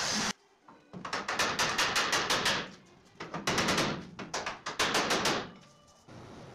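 Quick back-and-forth scraping strokes by hand along a bare steel truck frame rail, about seven a second, in three bursts. A pneumatic disc sander cuts off just at the start.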